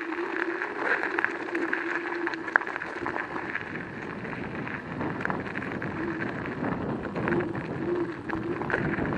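Joyor S10-S electric scooter riding over loose gravel: tyres crunching on stones with rattling and small clicks, and a steady motor whine that fades for a few seconds midway and then comes back.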